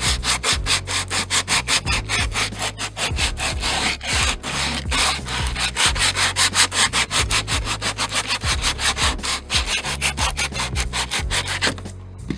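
Coarse 60-grit sandpaper rubbed back and forth over weathered teak boat railing in fast, even strokes, about five a second. The strokes stop near the end, as the grey surface is being sanded back to bare wood.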